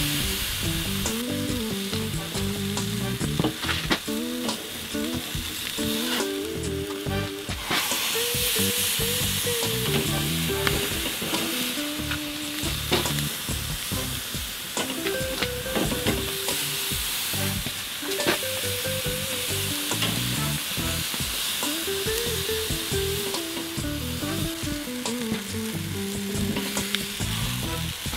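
Chicken thighs searing directly over hot charcoal on a kettle grill: a steady sizzle, with a few sharp clicks as metal tongs touch the grate and turn the meat. A soft background melody plays underneath.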